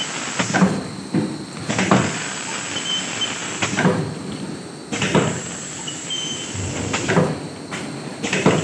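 Vertical form-fill-seal pouch packing machine running at line speed 18, packing detergent powder. Its mechanism clatters in a repeating cycle about every three seconds, each cycle with two strokes about a second apart and a brief high squeak.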